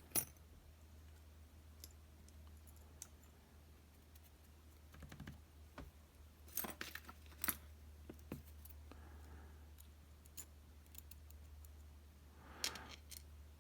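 Small metal parts of an M&C Condor lock clicking and tapping as its sliders are pulled out of the disassembled core: scattered sharp clicks in short clusters, over a steady low hum.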